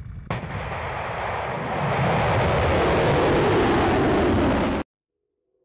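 Rocket motor of a missile at liftoff: a steady, rushing exhaust noise that grows louder about two seconds in and cuts off suddenly near the end.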